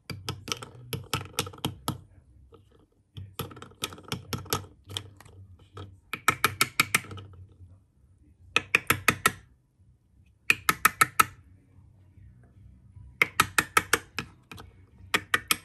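An open raw mussel's shell tapped rapidly against a hard surface, in about seven quick bursts of clicking with short pauses between. This is the freshness test: a live mussel closes its shell when tapped, while one that stays open is dead.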